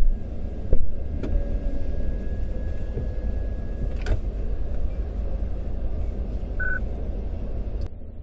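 Steady low rumble of an idling car, heard from inside its back seat, with a few sharp knocks as a man shifts on the seat. A short electronic beep sounds about two-thirds of the way through.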